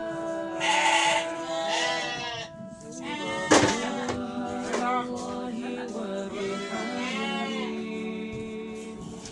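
Sheep bleating several times over background music with long held notes, with one sharp knock about three and a half seconds in.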